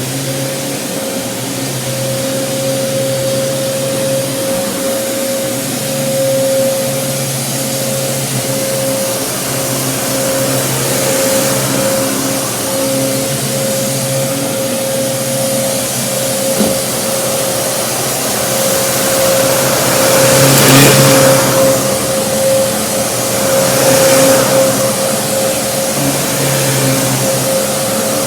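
Kenmore Progressive upright vacuum cleaner running, with a steady motor whine over a rushing hiss, vacuuming up scattered rice. The sound swells louder a few times in the last third.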